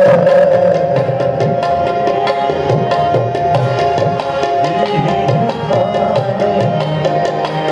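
Tabla and harmonium playing a ghazal accompaniment in Raga Yaman. The tabla plays quick, dense strokes, with the bass drum's pitch sliding up and down under the palm. The harmonium holds and steps through sustained reed notes underneath.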